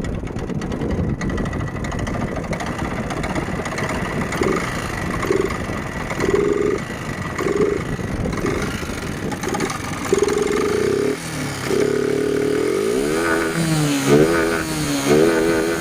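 Yamaha R15 v1's 150 cc single-cylinder fuel-injected engine running through its exhaust, given a string of short throttle blips from about four seconds in, then revved up and down in waves near the end.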